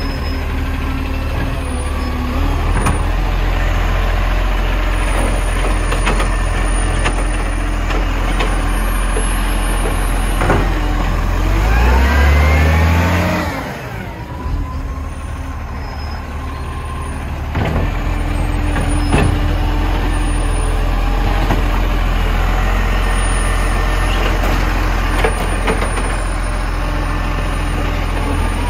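Garbage truck's engine running steadily with a few sharp knocks, revving up about twelve seconds in and easing off soon after.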